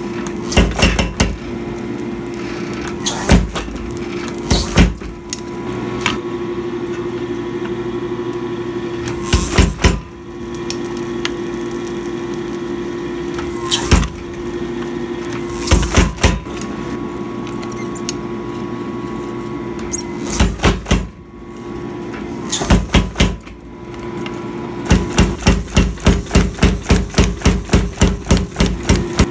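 Power hammer blows driving handled texturing tools into a red-hot steel plate, over a steady hum. Single and paired strikes come a few seconds apart, then near the end a quick run of blows at about four a second.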